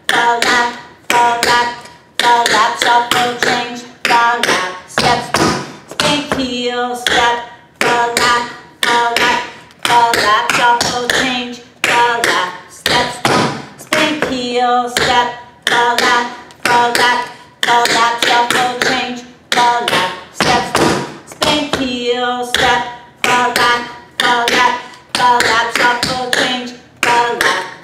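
Tap shoes' metal taps striking a hard studio floor, dancing the buffalo time step (spank heel, step, falling laps, shuffle change, step) over and over. Quick runs of taps, each with a short metallic ring, come in phrases about every two seconds.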